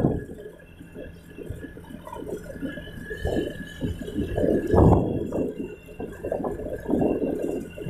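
Wind buffeting the microphone of a moving motorbike: an uneven low rumble that rises and falls in gusts, strongest about five seconds in, over a faint steady whine from the bike.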